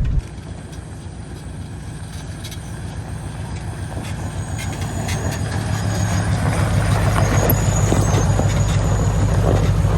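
Off-road tow truck's engine running with a steady low rumble, growing steadily louder over the first seven seconds, with scattered rattles and clicks.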